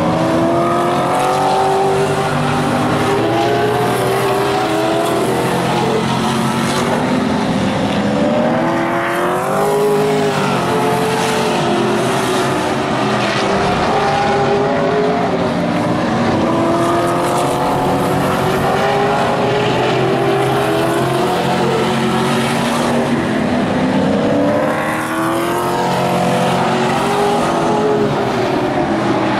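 Several vintage modified race cars running hard around the track, their engines overlapping in pitch that climbs and drops as they accelerate and lift through the corners. Cars sweep past close by about ten seconds in and again around twenty-five seconds in.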